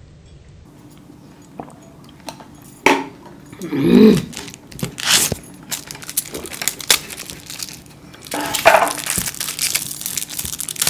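Plastic crinkling and tearing as juice-box straw wrappers are torn open and the cartons handled: scattered clicks at first, then a dense run of crackles from about eight seconds in. A short, loud, voice-like sound comes about four seconds in.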